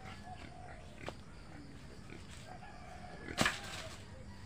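Farmyard animal sounds: faint rooster crowing, with one short, loud, sharp burst about three and a half seconds in.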